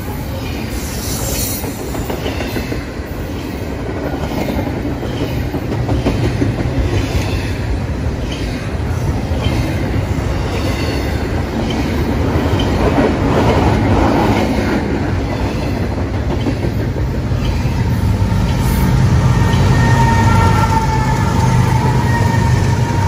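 A BNSF double-stack container train's well cars rolling past close by, with a steady loud rumble and wheel clatter on the rails. Near the end the low rumble grows as a mid-train BNSF diesel locomotive draws level, and a faint wheel squeal comes in.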